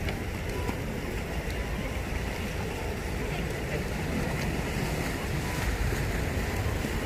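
Wind buffeting the microphone in uneven gusts over the soft wash of small sea waves on the shore.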